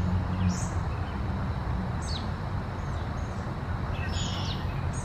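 A few short, high chirps from small songbirds over a steady low background rumble.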